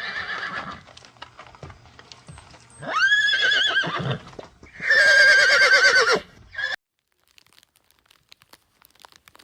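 Horse whinnying three times, each call a high, quavering neigh. The sound cuts off suddenly about two-thirds of the way through, leaving faint crackling.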